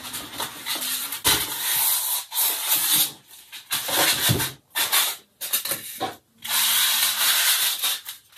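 A cardboard box holding a set of glass shakers being opened by hand: the card scraping and rustling as flaps are worked and the insert is slid out, in several spells with short gaps between them.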